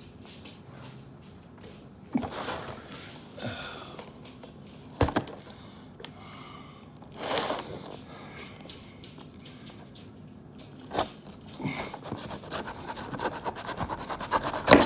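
Knife cutting into a cardboard box, with separate scrapes, rustles and a knock as the packaging is worked. Over the last couple of seconds it turns into a quick run of scraping, ending in a loud sharp sound.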